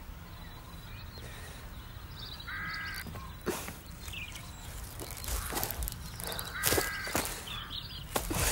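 Crow cawing twice, about four seconds apart, each call short. Sharp crackles and rustles of leaves and twigs come in the second half, over a steady low outdoor rumble.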